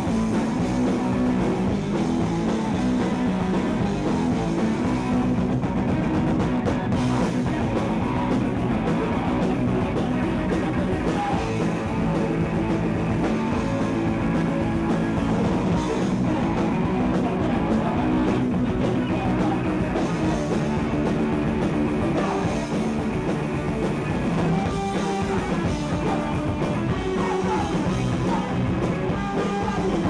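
A punk rock band playing live and loud: distorted electric guitar, bass and a drum kit in a fast, unbroken wall of sound, with a singer shouting into the microphone.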